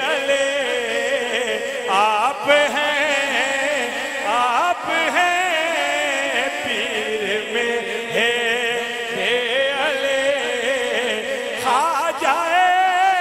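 A man singing a naat into a microphone, drawing out long wavering notes with melismatic runs. The voice is amplified over a PA.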